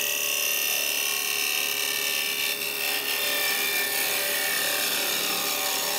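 Carbide cup cutter on a woodturning tool cutting a spinning ash blank on a lathe at about 2000 rpm: a steady, even hiss as shavings peel off, with a faint tone that slowly falls in pitch. It is a continuous sweep cut from the rim toward the centre.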